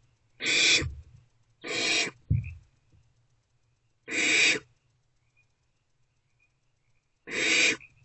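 Barn owlets giving harsh hissing calls, four in all, each about half a second long, with a short low thump just after the second.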